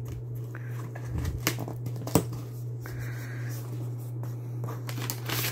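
Cardboard shipping box being opened by hand: flaps scraping and rustling, with a few sharp cardboard clicks, over a steady low hum.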